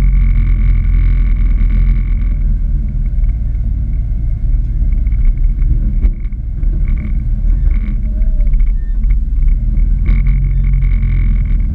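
Can-Am Maverick X3's three-cylinder engine idling with the machine standing still: a steady, loud low rumble.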